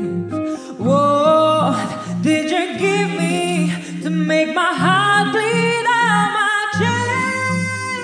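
A woman singing into a microphone, her voice sliding between notes, accompanied by an amplified Telecaster-style electric guitar that keeps a repeating pattern of low notes under chords.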